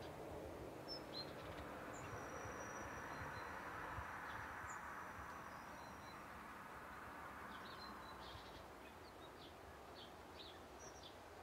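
Small birds chirping in short, high calls over a faint, steady distant rumble that swells and then slowly fades. The chirps come more often near the end.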